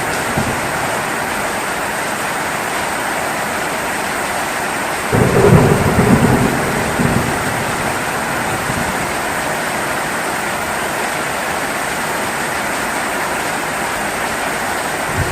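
Steady heavy rain, with a sudden low rumble of thunder about five seconds in that lasts about two seconds.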